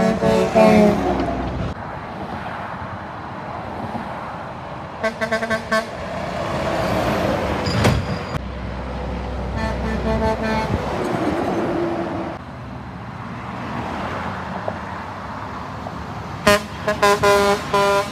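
Loaded dump trucks passing close by, their diesel engines and tyres running, with truck horns sounded in several bursts of short toots: one as a truck goes by right at the start, its pitch dropping as it passes, then about five seconds in, again around ten seconds, and a quick series of toots near the end.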